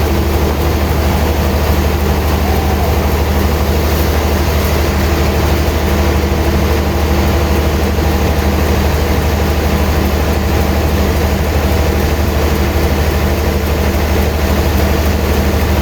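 Heavy sawmill machinery running steadily with a deep, even hum, with no cut starting or stopping.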